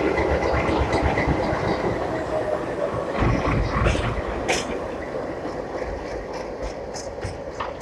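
WDG-class ALCO diesel locomotive passing close by: its diesel engine runs with a steady whine, and its wheels click over the rail joints. The sound fades after about four seconds as the locomotive draws away.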